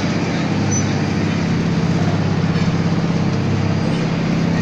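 Industrial shaft shredder (JLSS1900) running under load, its blades chewing shoe-factory scrap: a steady low hum under a dense grinding noise.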